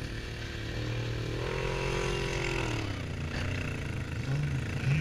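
Off-road buggy's engine revving: the pitch rises about a second and a half in, holds briefly under load, then drops back to a lower run.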